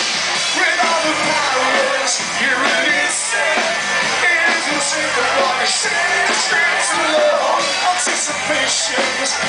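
A live rock band playing: a male lead singer singing over drums and electric guitars.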